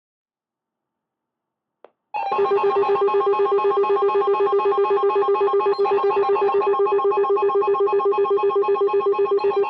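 Emergency Alert System attention signal: a loud electronic alert tone that starts suddenly about two seconds in, after a faint click, and pulses rapidly and evenly in a warbling, ringing pattern.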